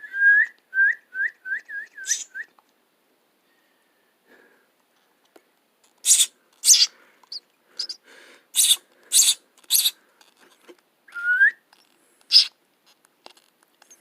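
Nestling birds begging while being hand-fed: a quick run of about seven short, high, falling chirps, then a string of harsh, raspy begging calls a few seconds later.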